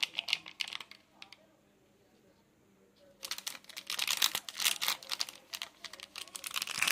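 Foil instant-noodle seasoning sachet crinkling as it is squeezed and shaken empty over a bowl: a few crackles at first, a pause of about two seconds, then dense, continuous crinkling from about three seconds in.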